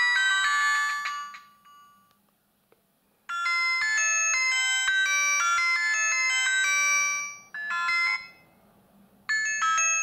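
Built-in ringtone previews of an Alcatel 2057 mobile phone playing through its loudspeaker as the ringtone list is scrolled: an electronic melody of several notes at once. One tune stops about a second and a half in, another starts about three seconds in and plays for about four seconds, a short snatch sounds near eight seconds, and a new tune begins just before the end.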